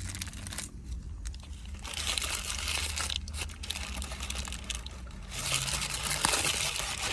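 Crinkling wrapper and crisp crunching as a lettuce-wrapped burger is unwrapped and bitten into, in several crackly stretches starting about two seconds in.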